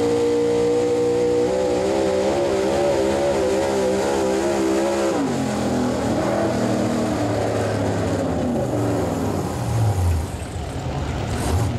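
Modified gasoline-engine Chevrolet pickup at full throttle, pulling a weight-transfer sled. The engine holds high revs that waver up and down, drops sharply about five seconds in, then winds down further near the end.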